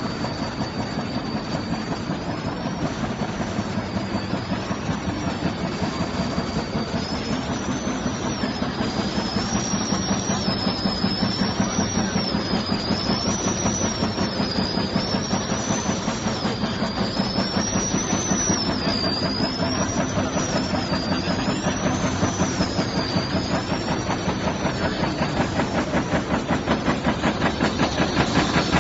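Paper-cup-fan die-cutting and punching machine with inline printer running at speed: a dense mechanical clatter with a fast, even rhythm of punching strokes. A high, thin whine wavers up and down in pitch through the middle.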